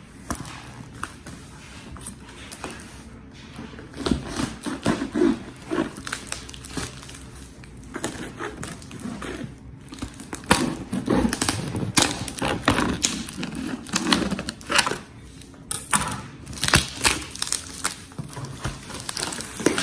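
A package being cut and torn open by hand: irregular clicks, rips and crinkling of its cardboard and plastic wrapping.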